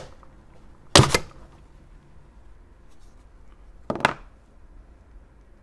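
Plastic end cap of a modem case being pulled off by hand: a short click, then a loud plastic knock about a second in as it comes free, and a smaller knock near four seconds.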